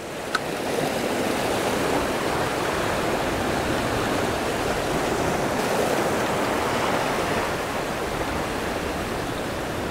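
Ocean surf washing and churning around shoreline rocks: a steady rushing that eases slightly near the end.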